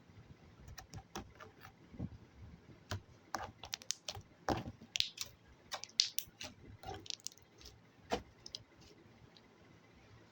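Slime being pressed and worked by hand, giving irregular sticky clicks and pops, busiest in the middle and thinning out toward the end.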